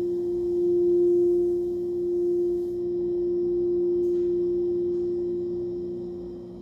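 Crystal singing bowl sung by rubbing a mallet around its rim: one pure, steady tone that swells and ebbs. The rubbing stops a little under three seconds in and the bowl rings on, slowly fading, with a faint tick about four seconds in.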